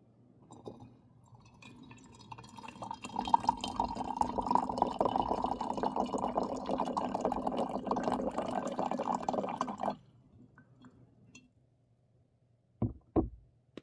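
Water poured in a steady stream into a cup or teapot for tea, building up and then stopping sharply after about seven seconds. Two short knocks follow near the end.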